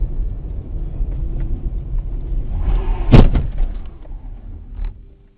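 Car driving with a steady low rumble of road and engine noise, then a single loud impact about three seconds in: a collision. The rumble dies away over the next two seconds.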